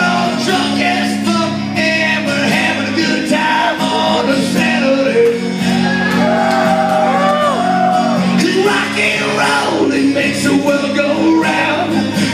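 Live rock music: a man sings loudly over a strummed acoustic guitar, his voice bending and gliding through held notes.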